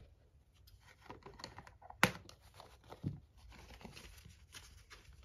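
Cardboard doll packaging being torn and handled: scattered rustling, crinkling and small tearing sounds, with a sharp click about two seconds in.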